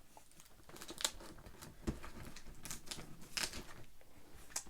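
Faint scattered clicks and rustles of a cardboard shipping box being handled and opened, a sharp tick every second or so.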